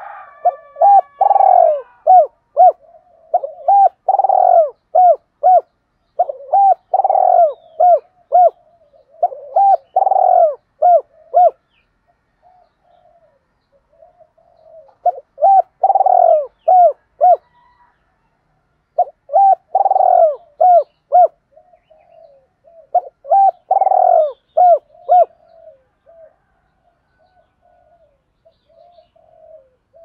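Spotted dove cooing: repeated phrases of several short, low coos each, about two seconds per phrase, with a pause of a few seconds near the middle and softer coos near the end.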